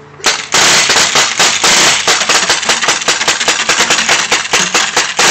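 Rapid paintball gun fire: a dense, continuous volley of sharp pops, many shots a second, starting suddenly about a quarter second in.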